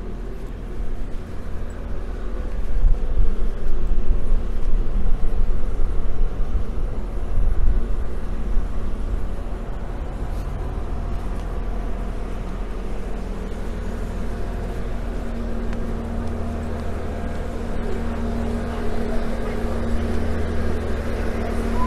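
Road traffic: cars running past with a deep rumble, loudest a few seconds in. In the later part it settles into a steady engine hum.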